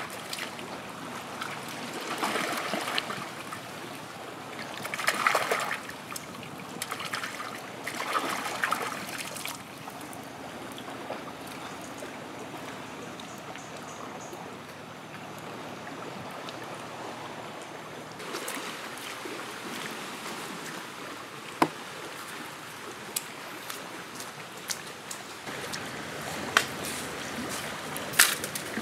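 Water trickling over rocks, with hands splashing and rinsing in the shallow water in three short spells in the first ten seconds. A few sharp clicks come later, the loudest near the end.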